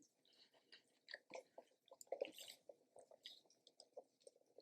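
Faint chewing: soft, wet mouth clicks of someone eating food close to the microphone.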